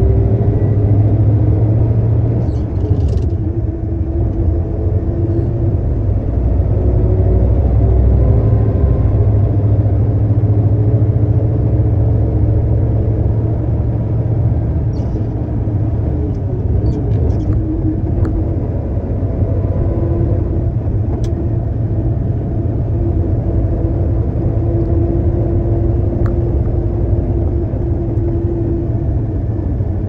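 Concrete mixer truck's diesel engine running with a steady low rumble, its pitch drifting slightly up and down, with a few light clicks scattered through.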